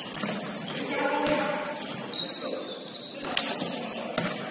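Basketball game sounds: sneakers squeaking on the court, a few ball bounces and players' voices calling out.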